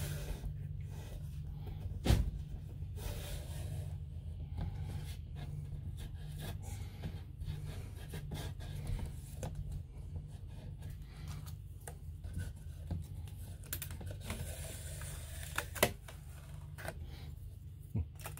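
Small handling noises of adhesive tape being stuck and pressed onto an RV window's slide bar: scattered light clicks, rubbing and a little tearing, with a sharper tap about two seconds in. A steady low hum runs underneath.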